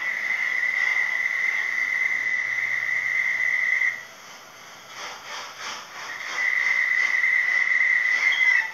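A high, steady whistle tone held for about four seconds, then sounded again for about two seconds near the end, wavering just before it cuts off.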